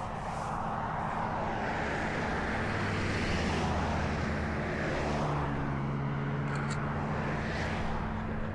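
Tow truck's engine running at raised idle with the PTO engaged to drive the hydraulics, a steady hum that shifts pitch slightly a couple of times, with road traffic swelling past.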